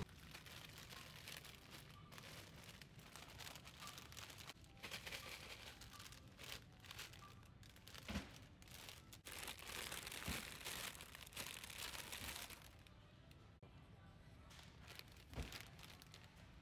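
Foil snack bags crinkling faintly as they are handled on a store shelf, with a few soft knocks.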